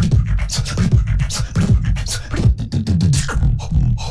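Human beatboxing: rapid percussive clicks and snare-like hits over a deep bass line, with scratch-like vocal effects.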